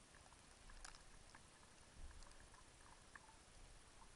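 Near silence: a faint steady hiss with a few light ticks, and a brief low thump about two seconds in.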